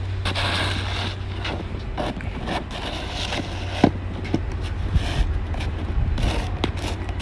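Snow being cleared: irregular scraping strokes over a steady low engine hum.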